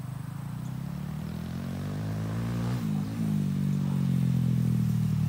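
Honda Grom mini motorcycle's single-cylinder four-stroke engine running as the bike approaches, growing steadily louder, with a brief rise and fall in engine pitch about three seconds in.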